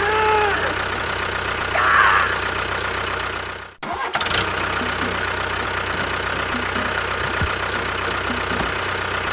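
An engine running steadily, with a brief break about four seconds in before it carries on.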